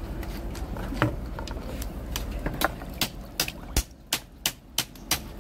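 Oyster shells knocking and clicking: a quick run of sharp taps, about three a second, starting about halfway in.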